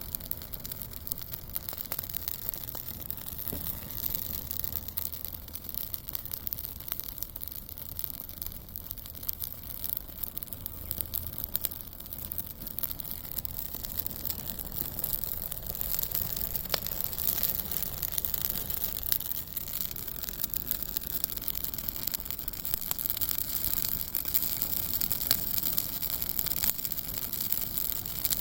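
Large wood campfire burning, with dense fine crackling over a steady hiss, growing somewhat louder about halfway through.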